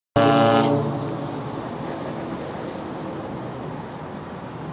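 Short, loud blast of the steamship-type horn fitted to the VL8-1162 electric locomotive. It starts abruptly, lasts about half a second and dies away within the first second into a steady low rumbling background noise.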